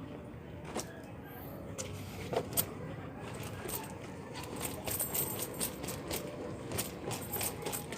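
Coins and small metal objects clinking and jingling in a series of quick, light clicks, which get busier in the second half.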